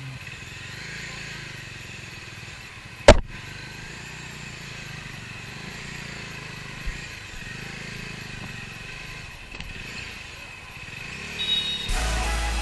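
Motorcycle engine running steadily while the bike is ridden over a rough dirt track, with one sharp knock about three seconds in. Music comes in near the end.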